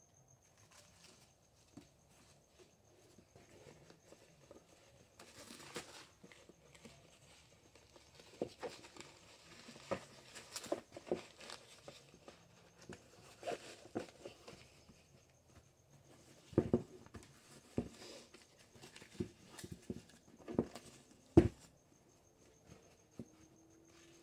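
Nylon plate carrier panels being handled and fitted together: fabric rustling and scraping with scattered soft knocks and taps, and a few sharper knocks in the second half.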